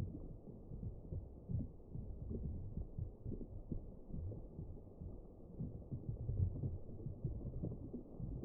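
Deep, muffled rumbling with irregular soft low thuds and nothing high-pitched, as in audio slowed down along with slow-motion footage of a smoke bomb bubbling in soap solution.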